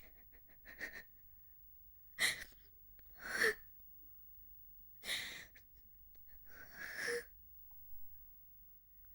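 A woman crying: a series of breathy sobbing gasps and sniffles, about six in nine seconds, with short quiet gaps between them.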